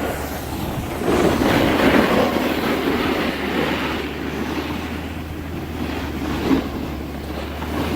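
Steady rushing, rumbling noise of wind buffeting the microphone.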